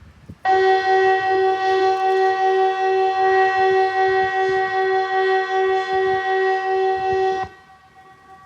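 Kockum Sonics ET 751 electronic civil-defence siren sounding one steady, loud multi-note blast of about seven seconds that starts and cuts off abruptly, with fainter tones lingering after it stops. The seven-second blast is one burst of the Swedish 'Important message to the public' (VMA) warning signal, sounded here as the quarterly siren test.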